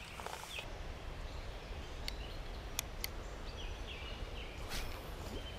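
Outdoor ambience: a steady low rumble with a few short bird chirps and several sharp clicks.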